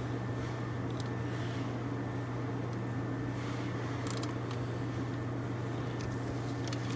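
Steady low mechanical hum, with a few faint light clicks around one second and four seconds in, as parts or tools are handled.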